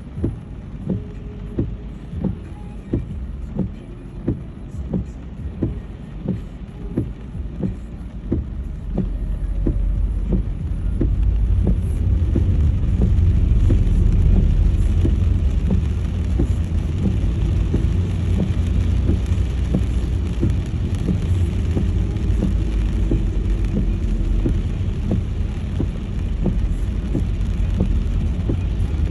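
Car driving on a wet road. Regular ticking, about one and a half ticks a second, comes first; about ten seconds in, a low engine and road rumble grows louder and holds steady.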